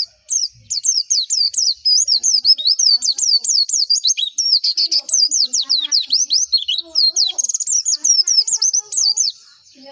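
Pleci (white-eye) singing a fast, unbroken song of quick, high sliding whistled notes, several a second, that stops shortly before the end.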